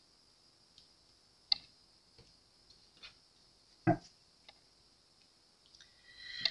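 A few soft, scattered clicks and taps of tarot cards being picked up and handled on a cloth-covered table, the loudest a little under four seconds in.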